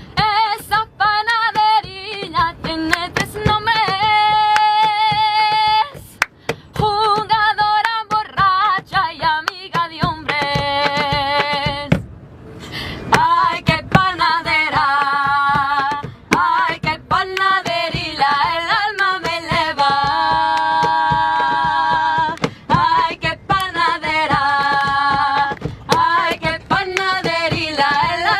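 A woman's voice singing a traditional folk song a cappella in phrases with long held notes, over sharp hand strikes beating out the rhythm.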